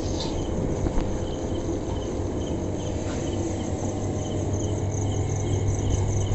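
Crickets chirping in a steady, evenly repeating rhythm of high chirps, over a steady low hum.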